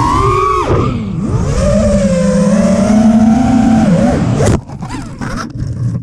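FPV quadcopter's brushless motors and propellers whining, the pitch rising and falling with the throttle, heard from the onboard camera. A little over four seconds in, the whine cuts off abruptly and scattered knocks and scrapes follow as the quad crashes.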